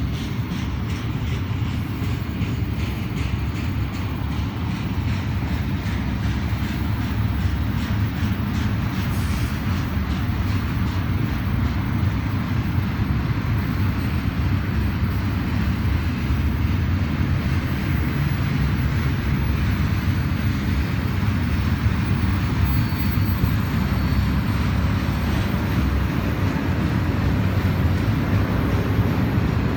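BNSF double-stack intermodal freight train rolling past: a steady, heavy rumble of wagons and wheels on rail that grows slightly louder toward the end.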